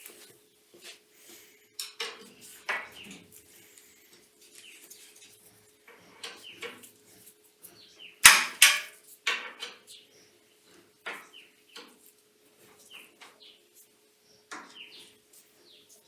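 Metal tools and small metal parts clinking and clattering irregularly as a drum sander is adjusted by hand, with the loudest clatter about eight seconds in, over a faint steady hum.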